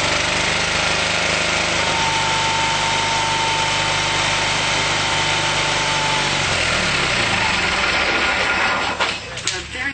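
The 20 HP Onan twin-cylinder engine of a 1986 Craftsman III lawn tractor is running on sprayed Berryman's cleaner, with its fuel system disconnected. Its speed shifts about two seconds in and again around seven seconds. Near the end the running breaks up, with a couple of sharp knocks.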